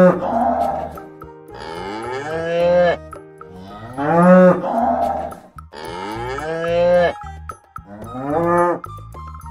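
Domestic cattle mooing: five long moos in a row, each about a second long, the pitch rising at the start and falling away at the end.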